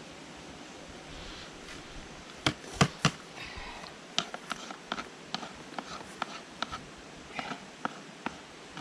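Cooking pot and utensils being handled: sharp knocks, three loud ones about two and a half to three seconds in, then a string of lighter taps and clicks, with a little scraping.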